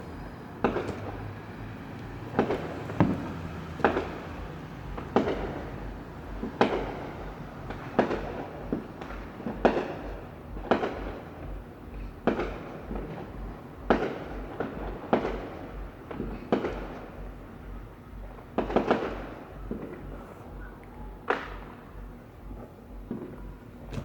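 Fireworks exploding one after another: sharp bangs at an irregular pace of roughly one every second or so, with a quick cluster of bangs about nineteen seconds in.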